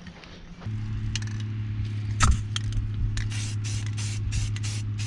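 Rust-Oleum spray paint can: rapid, even hissing bursts, about four a second, from about three seconds in, over a steady low hum that starts under a second in. A sharp knock a little over two seconds in.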